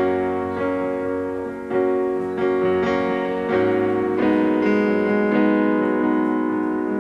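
Piano intro to a slow song: sustained chords struck one after another, a new chord roughly every second, with no voice yet.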